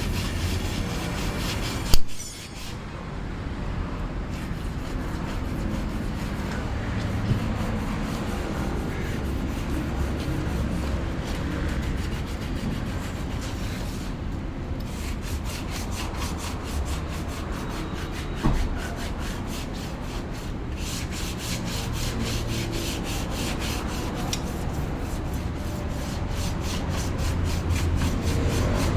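Steady abrasive rubbing, typical of sanding a car bumper, in quick even strokes. A sharp knock sounds about two seconds in and another more than halfway through.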